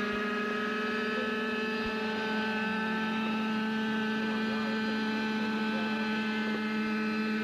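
Small two-stroke glow engines of several radio-controlled model helicopters running steadily together, a high buzz at a few slightly different pitches.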